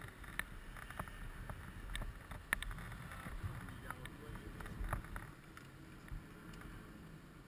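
Scattered clicks and light knocks of hands working a motorcycle's hard pannier case and its key, the sharpest about two and a half seconds in, over a low rumble of wind on the microphone.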